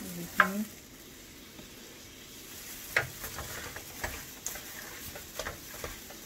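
Minced garlic frying softly in a skillet while plastic-gloved hands mix seasoned shrimp in a stainless steel bowl, giving irregular wet squishes and clicks from about three seconds in.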